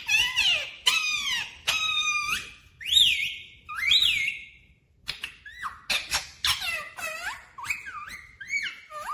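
Ringneck parrot giving a rapid run of whistles and squeaky calls, each note sliding up or down in pitch, with short gaps around the middle.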